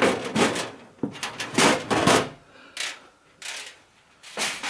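Clattering and scraping handling noises from a cooker hood being handled and opened up: about seven short knocks and scrapes of metal and plastic parts, the loudest in the first two seconds.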